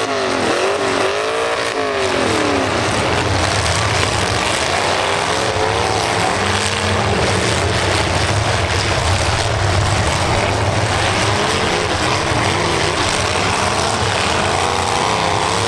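Demolition derby cars' engines running loud and revving hard in a continuous roar. One engine or tyre swoops up and down in pitch during the first couple of seconds.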